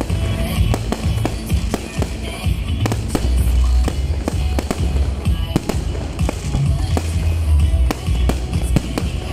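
Fireworks bursting overhead in an irregular run of sharp bangs and crackles, several a second, over loud music with a heavy bass beat.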